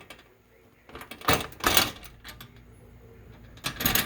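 Thin diamond-plate aluminum storm shutters being swung open on stiff hinges: sharp metallic clanks and rattles about a second in, then more clatter near the end.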